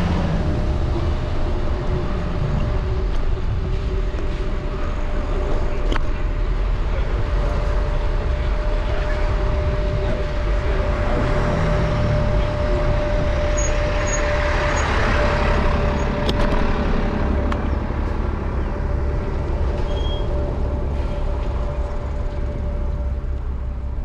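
Street riding sound from a handlebar-mounted Apollo Explore electric scooter in city traffic: a steady low rumble with one constant whine running through it. A hiss swells and fades about halfway through.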